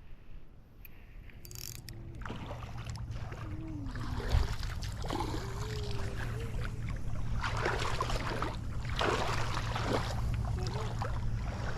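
A boat motor droning steadily, growing louder a couple of seconds in and holding, with a sharp knock about four seconds in.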